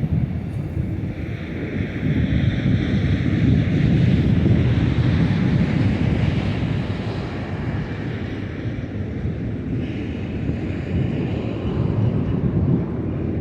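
Autorack freight cars of a BNSF train rolling past on the mainline: a steady, loud rumble of wheels on rail, with wind buffeting the microphone.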